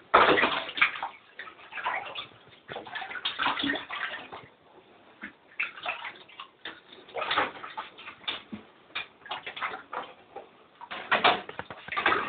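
Water splashing and sloshing on and off as a pet mink plays in it, some splashes loud and others faint.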